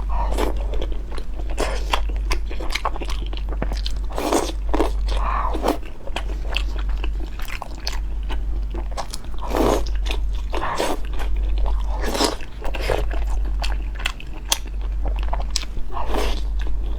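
Close-miked biting and chewing of crunchy food: many sharp, irregular crunches with wet mouth sounds between them, over a steady low hum.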